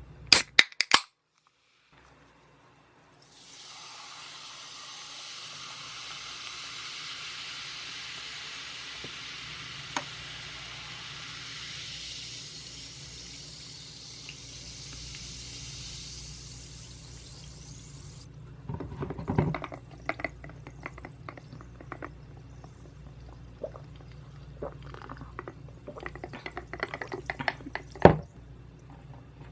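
A few sharp clicks, then carbonated Zero Pepsi fizzing steadily for about fifteen seconds as it is poured, then irregular clicks and taps.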